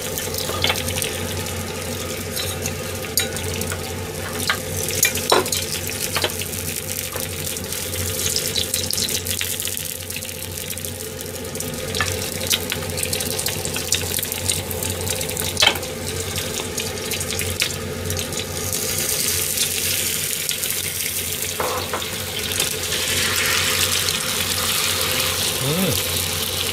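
Beaten egg frying with a sizzle in an oiled rectangular tamagoyaki pan over a gas flame, with scattered light clicks of chopsticks against the pan. About two-thirds of the way through the sizzle grows brighter and louder as a fresh layer of egg spreads over the hot pan.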